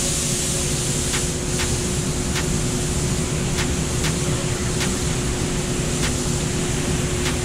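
Paint-booth ventilation fans running with a steady rushing and a constant hum, over the hiss of a gravity-feed spray gun laying colour onto a car hood. A few faint ticks come through the noise.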